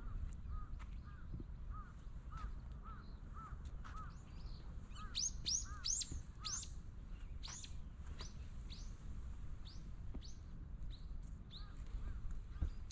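Songbirds calling: first a run of short chirps, about two a second. From about five seconds in come several loud, sharp calls sliding down in pitch, then fainter ones. A steady low rumble runs underneath.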